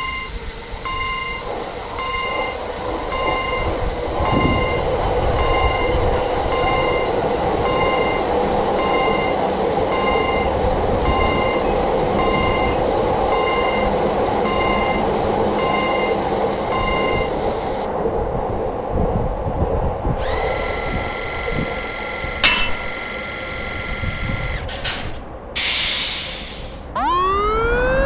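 Japanese railroad crossing alarm ringing a steady ding-ding a little over once a second, over the rumble of a passing train. The alarm stops about two-thirds of the way through, a different steady tone follows, and near the end a siren begins winding up.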